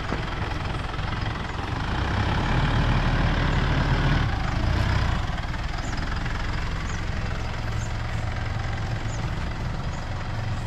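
Mitsubishi Montero Sport's diesel engine running as the SUV creeps across grass. It is loudest as it passes close by, from about two to five seconds in, then lower and steady as it pulls away.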